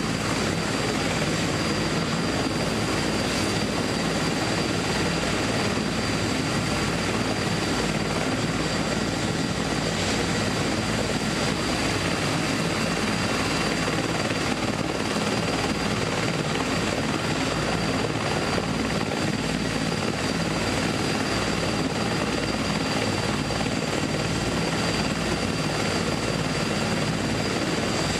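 Steady mechanical drone with a faint high-pitched whine, heard from inside a stationary car.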